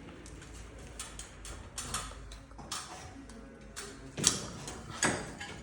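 Handling noise: scattered light clicks and rustles, with two louder rasping sounds near the end, as temporary tape and fixings are pulled off a hanging lamp.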